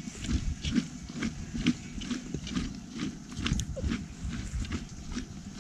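Jute sack rustling and scraping against a clay cooking pot as it is gripped and handled, in short irregular crackles over a low rumble.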